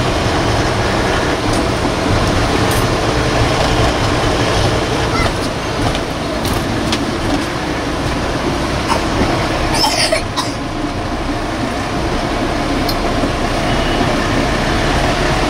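Inside a moving Force Motors AC bus: a steady rumble of engine and road noise, with a few short clicks and rattles, the loudest about ten seconds in.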